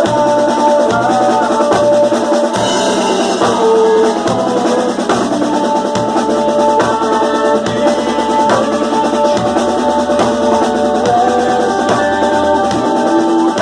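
A band playing: snare and bass drums with rolls keep a steady beat under a held melody of wind or brass notes.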